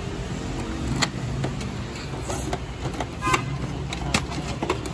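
Several sharp clicks and taps of plastic parts inside an inkjet printer being handled, over a steady low rumble like a road vehicle's engine running.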